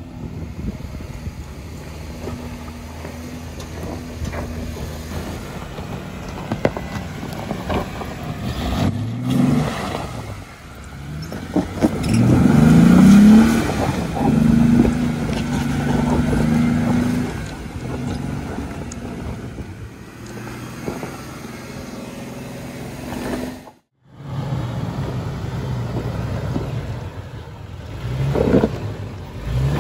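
Jeep Wrangler engines working slowly up a rocky dirt trail climb, with the engine revving up and rising in pitch about halfway through as a tire spins in the loose dirt. Short knocks of tires on rock are scattered throughout, and the sound drops out for a moment near the end.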